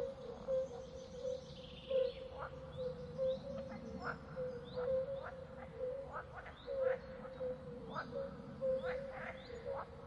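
Wildlife ambience: short rising bird-like chirps repeating every half second to a second, over a steady faint note and a low background hum.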